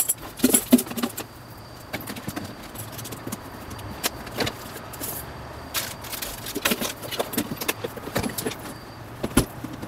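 Objects handled in and around a suitcase: rustling with scattered clicks and knocks, one louder knock near the end.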